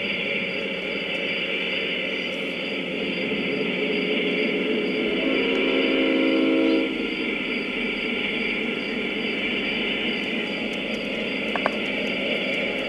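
Large-scale model train's onboard sound unit blowing one diesel horn blast, a chord of about a second and a half, over steady running noise. A brief high double beep comes near the end.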